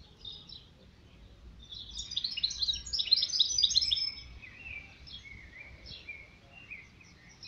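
Mestiço, a canary-finch hybrid cage bird, singing. A few soft chirps open it, then a loud, rapid run of twittering notes lasts about two seconds, and softer scattered chirps and short trills follow.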